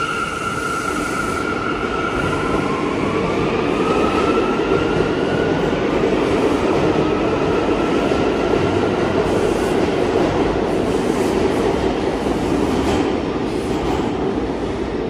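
New York City subway train running on the rails: a steady rumble of wheels on track, with a motor whine that climbs in pitch over the first few seconds.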